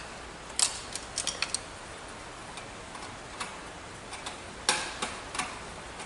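Scattered sharp little clicks and taps from handling a screwdriver, wires and a resistor at the plastic screw terminals of a fire alarm horn strobe's mounting base. There is a quick cluster about half a second in, a few lone clicks, and another group near the end.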